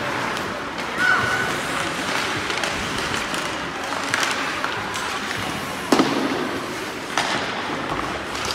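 Ice rink sounds during a youth ice hockey game: a steady scraping hiss with sharp knocks of sticks and puck, the loudest about six seconds in and two lighter ones about four and seven seconds in.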